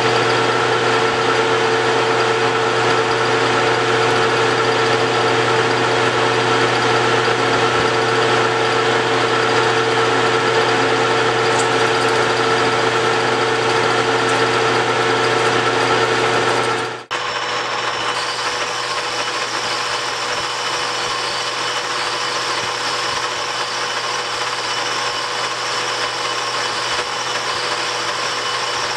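Metal lathe running, turning a brass bar down with a carbide cutting tool: a steady motor-and-gear hum with several steady tones. About 17 s in the sound switches abruptly to a slightly quieter steady running with different tones.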